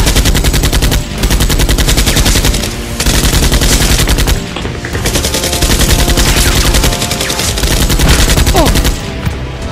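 Dubbed-in automatic-gunfire sound effect: rapid machine-gun fire in four long bursts with short breaks between them, over background music.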